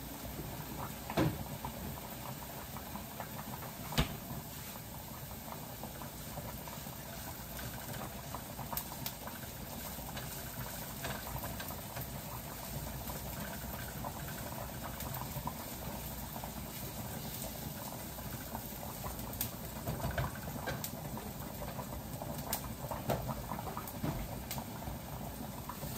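Pot of potatoes boiling on an electric stove, a steady bubbling hiss, with scattered light clicks and knocks of kitchen work, including a utensil stirring onions in a frying pan, most of them about 20 seconds in.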